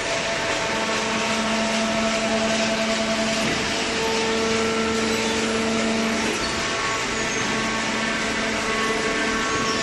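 Hydraulic baler's motor and pump running steadily: an even whirring hum with several steady tones, some growing stronger for a few seconds in the middle.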